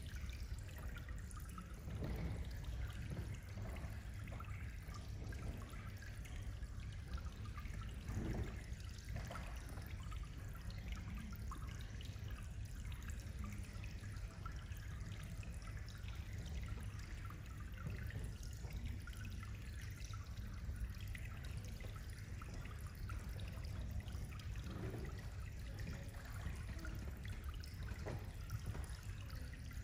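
Faint, steady trickle of water with scattered small drips and splashes over a low hum: water in the pool the LED counters sit in.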